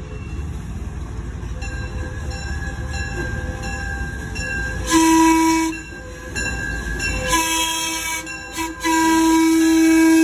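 Small diesel locomotive running as it approaches, its engine sound low and steady, then sounding its horn: a short blast about five seconds in, another about two seconds later, and a long blast starting near the end.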